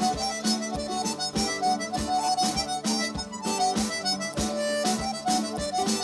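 Live Irish trad reel: a squeezebox plays a fast melody over strummed guitar chords, with a drum kit keeping a steady beat.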